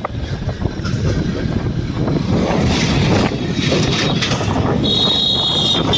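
Road and wind noise of a moving vehicle on a highway, steady throughout, with a high steady tone sounding for the last second or so.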